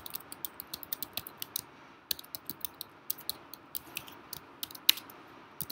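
Typing on a computer keyboard: quick, irregular keystrokes with a short pause about two seconds in and one sharper key strike near the end.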